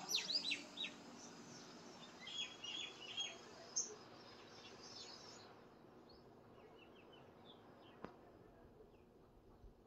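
Small birds chirping in quick, high calls, busiest in the first half and fainter later. A single sharp click about eight seconds in.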